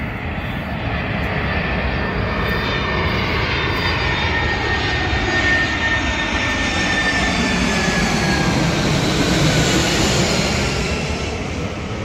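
Loud jet airliner flying low overhead: a steady engine roar with a whine that slowly falls in pitch as it passes. The roar builds to its loudest about nine or ten seconds in, then eases off.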